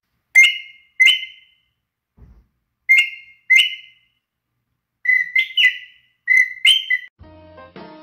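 Handcrafted bird-call whistle blown in short, sharp chirps: two pairs about three-quarters of a second apart, then a quicker run of about six chirps. Outro music comes in near the end.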